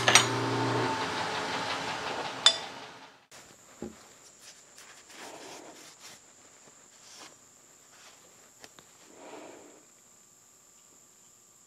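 A metal lathe's motor hum stops about a second in, and the remaining shop noise fades out over the next two seconds, with a couple of sharp clicks. After that, a cotton shop rag rubs over a small steel machined part in a few soft wiping passes, over a faint, steady, high insect drone.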